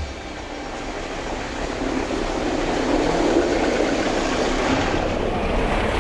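A vehicle passing close by: a rushing rumble that swells over the first few seconds, stays loud, and begins to ease near the end.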